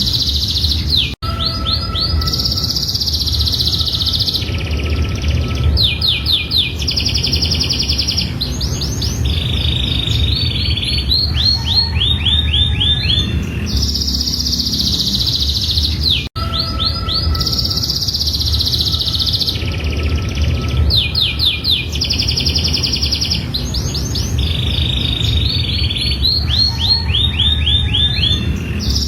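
Domestic canary singing a long, continuous, high-pitched song of fast trills and rolls. It is a looped recording: the same passage repeats about every fifteen seconds, with a brief cut-out each time it restarts. A steady low rumble runs underneath.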